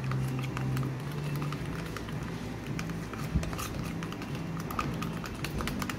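Small metal spatula stirring thick tinted decorative paint in a plastic tub, with irregular clicks and scrapes as it knocks and drags against the tub, mixing pigment into the silk paint.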